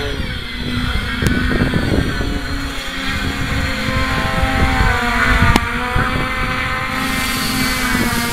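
Hexacopter drone motors and propellers humming steadily, with a few overtones drifting slightly in pitch, while wind buffets the microphone.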